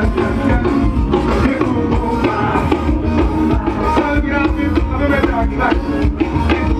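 Loud music with a steady drum beat and singing, played through automotive sound-system speaker walls.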